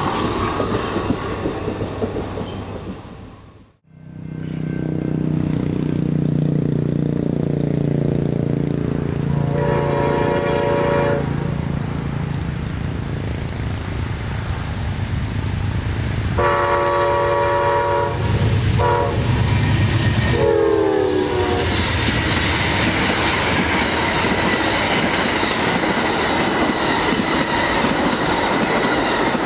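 Passenger cars rolling past, cut off suddenly a few seconds in. Then the Amtrak Silver Meteor's diesel locomotive approaches with a low engine rumble and sounds its horn: two long blasts, a short one and a final long one that drops in pitch as it passes. The steady rush and clatter of its passenger cars going by follows.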